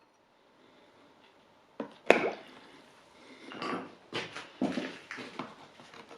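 Quiet, then a run of irregular knocks and scraping clatter of hard objects being handled, the loudest a sharp knock about two seconds in.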